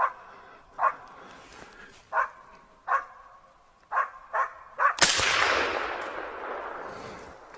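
A laika dog barks in short sharp barks, seven in all, at a moose it is holding at bay. About five seconds in, a Vepr .308 carbine fitted with a muzzle brake fires one loud shot that rolls away through the forest, fading over a couple of seconds.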